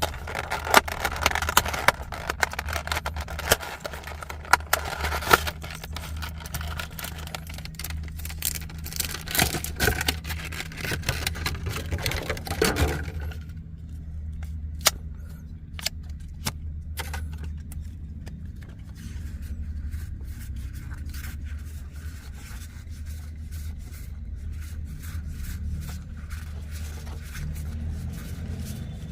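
Crackle, rustle and clicks of a trading-card trial deck being unwrapped and its cards handled, busy for about the first half and then sparser separate clicks, over a steady low hum inside a car.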